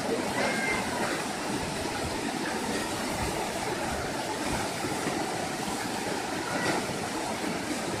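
Steady rushing of the Orekhovsky waterfall's 27.5-metre lower cascade on the Bezumenka river, pouring into its plunge pool.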